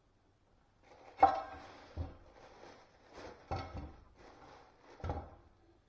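A few sharp knocks with clattering and scraping between them, the first and loudest ringing briefly like metal: hard objects being handled and set down.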